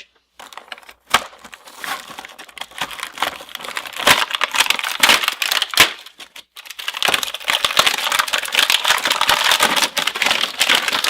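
A toy's cardboard-and-plastic retail package being torn open by hand: continuous crackling and crinkling with sharp snaps, pausing briefly about halfway through.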